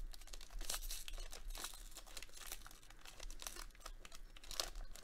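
Thin foil trading-card booster pack wrapper crinkling and tearing as gloved hands work it open, in a run of small irregular crackles.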